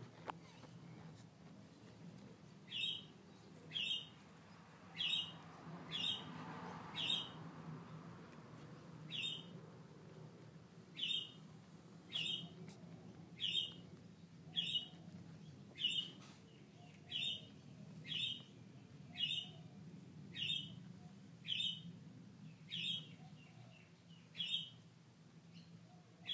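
A bird chirping over and over, one short high, slightly falling chirp about every second, starting a few seconds in.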